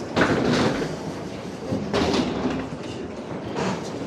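Wheeled suitcases rolling and rattling along a jet bridge floor, with footsteps and indistinct voices; the rattle swells louder a few times, about a quarter second in and again around two seconds in.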